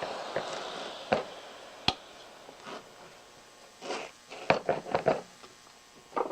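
Motor noise from the oscillating multi-tool and its dust extraction fades out over the first two seconds. After that come scattered clicks and knocks, a sharp one a little before two seconds and a quick cluster of them about four to five seconds in, as the tool and its accessories are handled.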